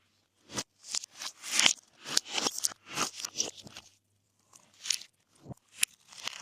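Glossy slime being mixed and pressed by hand, making a quick, irregular string of wet pops and crackles, several a second, with a brief pause a little past the middle.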